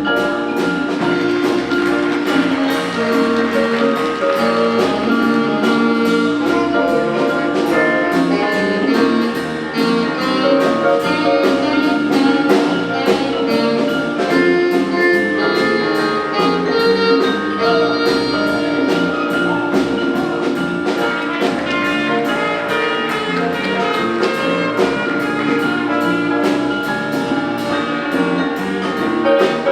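High school jazz big band playing: sustained, shifting horn chords over a steady beat.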